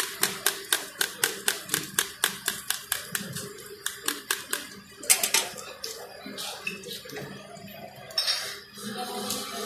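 Metal spatula tapping rapidly and evenly on a large flat griddle (tawa) as parathas fry, about four sharp clicks a second. About halfway through it breaks off into a few scattered metal clanks.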